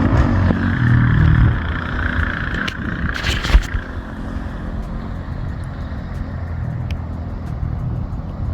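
Coleman CT200U-EX minibike's small engine running, louder for the first two seconds before easing to a lower, steady note. One sharp knock about three and a half seconds in.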